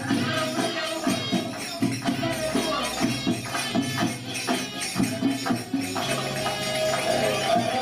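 Belly dance music: hand-drum strokes in a steady rhythm with jingling percussion and a held, wavering melody line over them.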